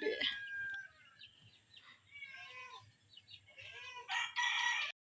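Rooster crowing, with fainter calls mid-way and a loud crow near the end that cuts off suddenly.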